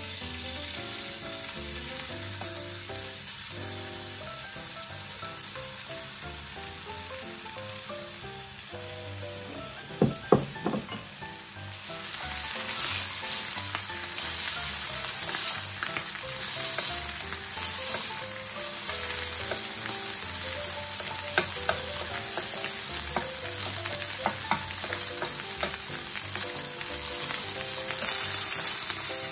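Thin pork slices sizzling in oil on a hot flat griddle, the sizzle getting louder about twelve seconds in as more slices go down. A few sharp clicks sound just before the sizzle rises.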